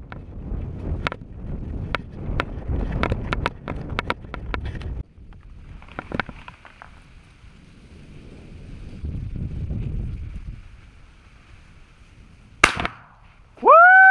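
Scattered footfalls and handling knocks on a dirt track for the first few seconds. Near the end comes a single sharp crack, the loudest sound. It is followed at once by one short animal cry that rises and falls in pitch.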